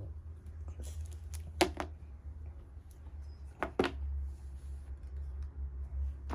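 A few sharp clicks in two close pairs, about two seconds apart, over a steady low hum.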